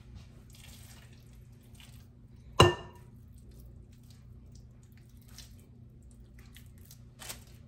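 Kitchen handling noises while raw meatball mixture is weighed and rolled by hand: soft rustling and a single sharp clank with a short ring about two and a half seconds in, over a steady low hum.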